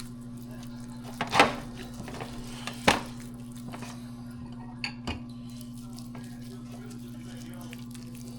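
Kitchenware clanking: a few sharp knocks of dishes or utensils, the loudest about a second and a half in and another near three seconds, over a steady low hum.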